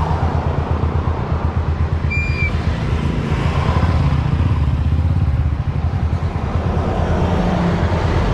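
Motorcycle tricycle engine running while riding along in traffic, a steady low pulsing throughout. A brief high-pitched tone sounds about two seconds in.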